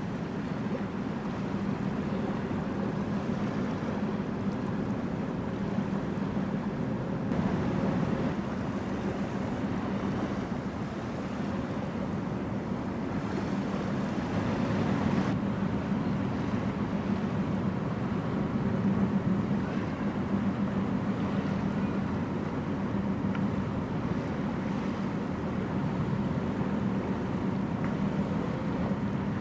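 Low steady drone of a large ship's diesel engines across the water, mixed with wind rumbling on the microphone.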